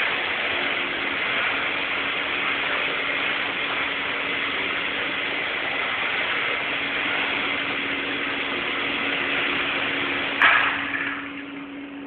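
Small battery-powered toy remote-control helicopter's electric motor and rotor whirring steadily with a low hum as it flies low. About ten and a half seconds in there is a sharp knock, and the whirring becomes noticeably quieter.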